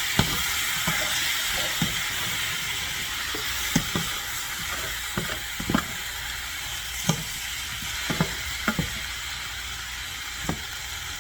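Chicken and diced vegetables sizzling steadily in olive oil in a hot pan, with freshly added chopped tomatoes. Irregular sharp knocks of a utensil against the pan come about once a second as the stir fry is stirred.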